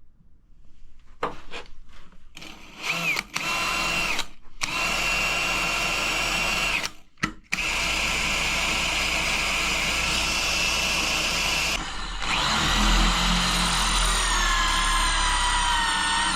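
Electric drill drilling into a safe: it is started and stopped in several short runs, then runs steadily, its whine dropping slightly in pitch near the end as it works under load.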